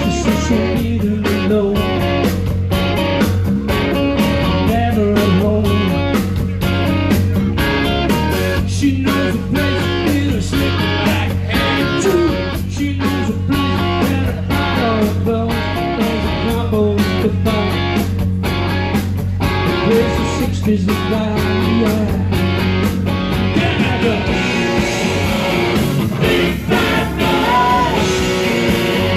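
Rock band playing live: electric guitar over bass and drums, with a steady beat.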